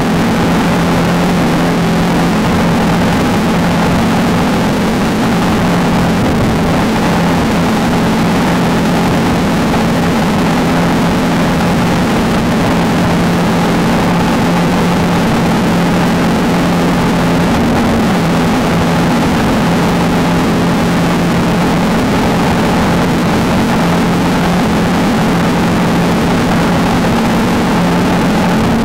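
Off-road race vehicle's engine running at a steady speed, a constant loud drone with a rushing noise underneath.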